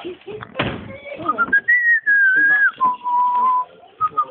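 A person whistling a short phrase: a clear note glides up, wavers and falls, then drops to a steady lower note. There is a brief thump about half a second in.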